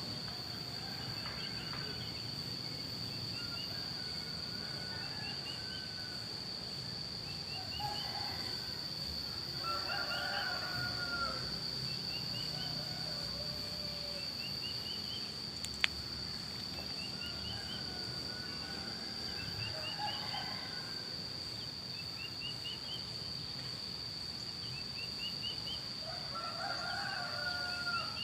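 Roosters crowing back and forth, three or four crows, while a small bird repeats a short rising trill every couple of seconds over a steady high-pitched buzz. A single sharp click about two-thirds of the way in.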